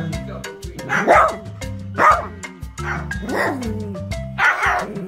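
Small dog barking about four times, each bark short with a falling pitch, over background music with a steady beat.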